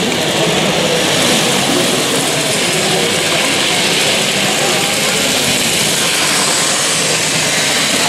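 Steady murmur of voices in a crowded exhibition hall, mixed with the running of a long model freight train rolling past on the layout tracks close by.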